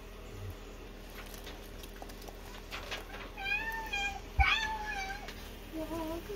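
Two drawn-out, meow-like calls about halfway through, the second bending up and down in pitch, then a shorter, lower call near the end.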